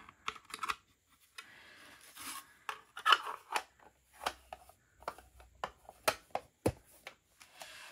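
Hard plastic diamond-painting tray and its cover being handled: scattered light clicks and scrapes of plastic, a brief rustle about two seconds in, and a stronger knock near the end.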